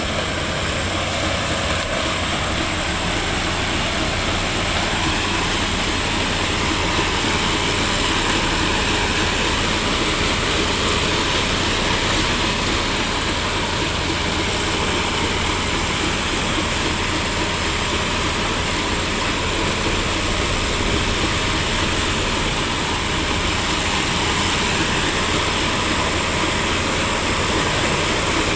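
Sugarcane harvester running steadily at work, a constant heavy engine and machinery noise with a low hum.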